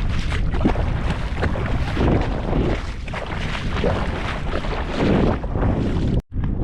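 Wind buffeting the microphone with a continuous low rumble; the sound cuts out briefly near the end.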